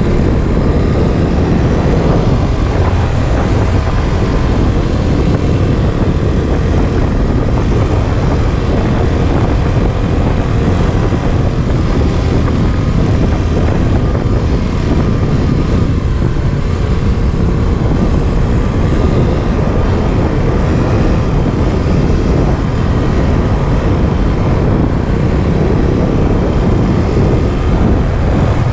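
Trail motorcycle engine running steadily while riding, heard from the bike itself, with wind noise on the microphone.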